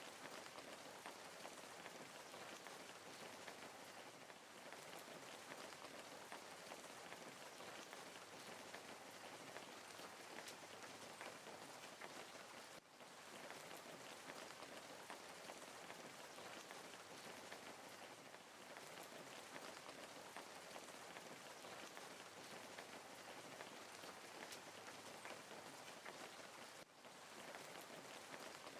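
Burning wood crackling in a fireplace: a steady hiss full of small, quick pops and snaps, faint throughout, dipping briefly twice.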